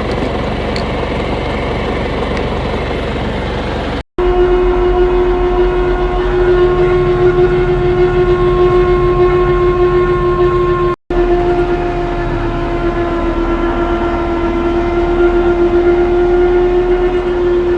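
Tractor running a John Deere 459 round baler at steady speed: a low engine rumble with a loud, steady whine over it from about four seconds in. The sound breaks off twice at edits.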